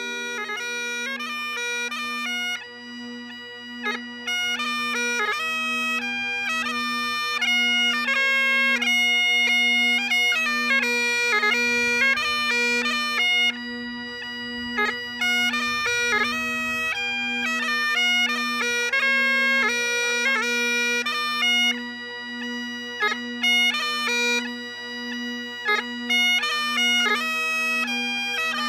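Great Highland bagpipes played solo: steady drones, with a slow even pulsing, under the chanter's melody, which is full of quick grace notes.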